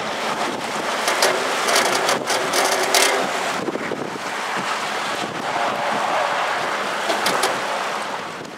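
Strong derecho thunderstorm wind gusting hard across the microphone, rising and easing in gusts, with scattered sharp ticks. It fades away near the end.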